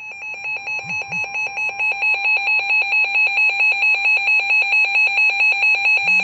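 Weather alert radio's electronic alarm beeping rapidly, several buzzy beeps a second, growing louder over the first couple of seconds and then holding steady: the receiver signalling an incoming warning.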